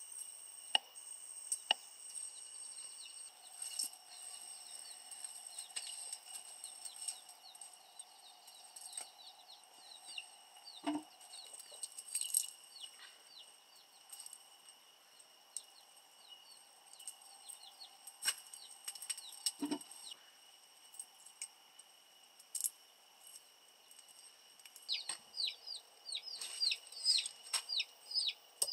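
Village chickens cheeping and clucking: many short high peeps, coming thick and fast near the end, with a couple of lower clucks and a few light knocks. A steady high ringing tone sits underneath.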